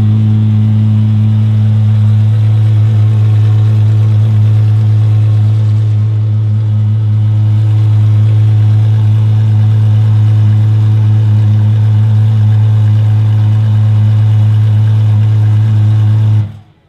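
The Apollo IE's 6.3-litre naturally aspirated V12 idles steadily at one even pitch through its exhaust, then cuts off suddenly near the end.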